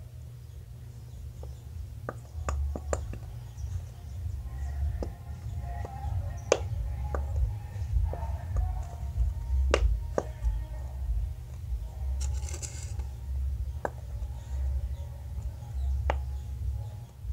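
Plastic squeeze bottle of white glue handled and squeezed over a plastic tub, giving scattered sharp clicks and a brief hiss about twelve seconds in, over a steady low rumble.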